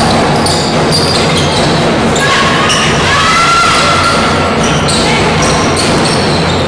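Basketball game sounds in an echoing hall: the ball bouncing, sneakers squeaking in short bursts on the court, and players' scattered calls.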